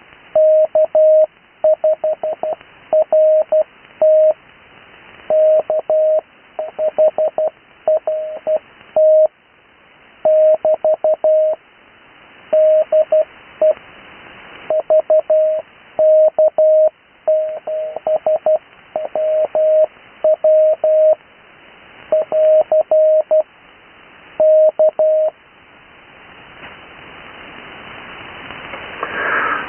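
Morse code (CW) on the 80 m amateur band: a single steady beep keyed on and off into dots and dashes, spelling out amateur call signs at full speed with normal character spacing (no Farnsworth spacing), over radio receiver hiss. The keying stops a few seconds before the end, and the hiss then grows louder.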